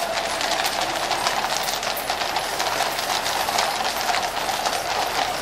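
Shod hooves of a column of cavalry horses clip-clopping at a walk on a paved road, many overlapping hoof strikes, over steady crowd noise.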